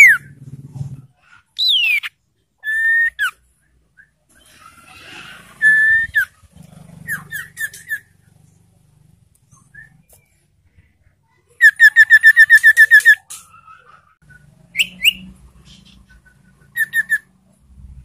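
Caged iora singing loud, clear whistled phrases: downward-sliding whistles and a held note early on, then a fast run of about a dozen clipped notes about twelve seconds in, and short phrases near the end. Its song is filled with phrases learned from the yellow-vented bulbul (trucukan).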